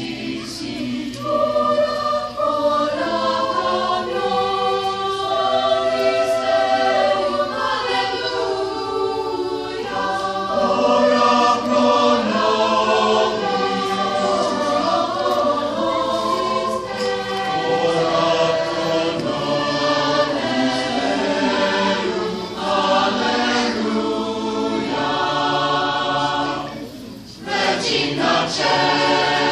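Mixed youth choir of boys and girls singing in parts, with sustained chords; a short break about 27 seconds in before the singing picks up again.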